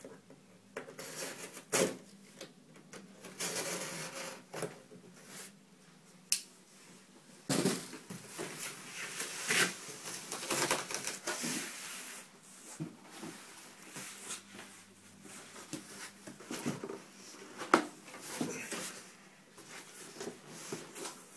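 Cardboard shipping box being cut and pulled open by hand: irregular rustling, scraping and knocks of cardboard and packing, with a few sharp clicks.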